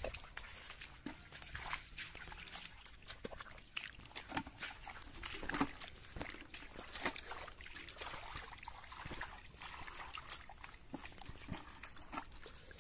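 Irregular wet squelches, splashes and clicks of hands and bare feet working through mud and shallow water among weeds, while eels and fish are grabbed and dropped into a plastic bucket.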